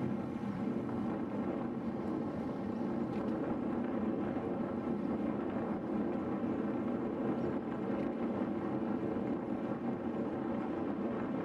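Steady rushing noise of a road bicycle ride at speed: wind buffeting the microphone and tyres on asphalt, even and unbroken.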